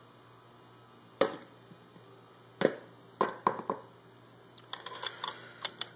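Handling knocks and clicks as a clutch steel plate is fetched: one knock about a second in, another near the middle, a quick run of three, then a flurry of light taps near the end.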